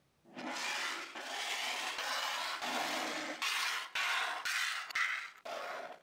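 Glass bowls scraping as they are slid across a textured stone-like countertop: a series of about eight gritty rubbing strokes, each half a second to a second long with short breaks between them.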